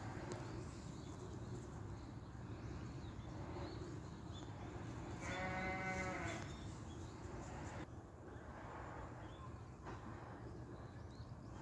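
An animal bleats once: a single wavering call, a little over a second long, about five seconds in, over a steady low background rumble.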